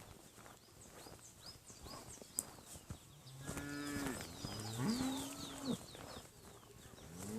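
Cattle mooing: two long moos near the middle, the second one starting low and rising. A run of quick high falling chirps goes on through it.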